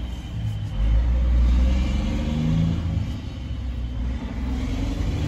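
Road traffic passing: a low engine rumble from passing vehicles, swelling about a second in, with the engine pitch shifting as they go by.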